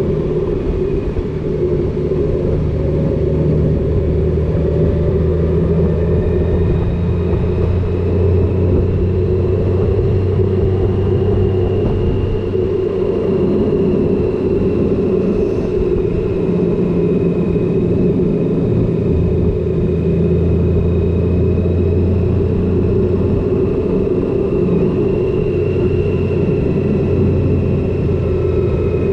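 Honda Gold Wing motorcycle at a steady cruise, its flat-six engine running under wind and road noise, the pitch drifting slightly with speed through the bends.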